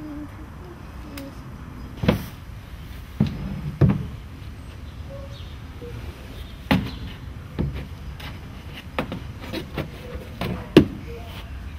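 Irregular knocks and thumps of a toddler climbing and crawling on a hollow plastic play structure, about nine in all, over a steady low background hum.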